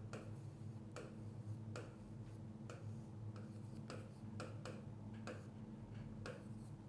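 Faint clock ticking about once a second, with a steady low hum underneath.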